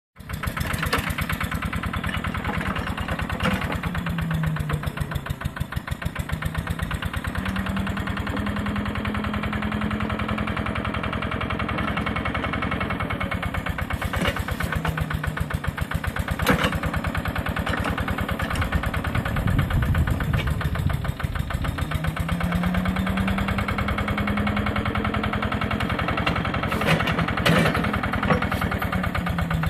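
Engine of a 1968 Smalley 5 Mk2 towable digger running steadily, its note rising and falling several times as the machine works its arm to walk itself along. A few sharp knocks come through, the loudest about halfway and near the end.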